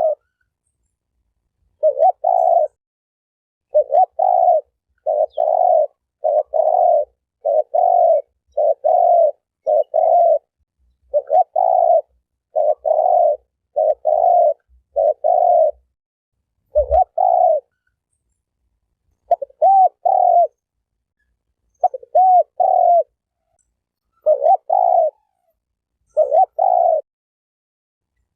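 Spotted dove cooing over and over: short low coos, many of them in pairs, with a pause of about a second or two between phrases and near-total silence in the gaps, as in a looped sound-effect recording.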